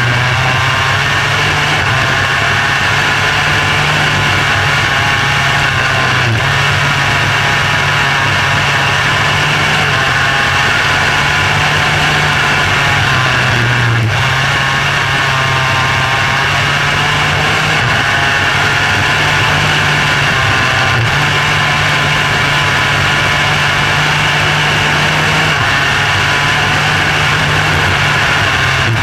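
Micro sprint car engine running hard at race speed, heard from onboard the car, a steady loud drone whose pitch dips briefly every several seconds.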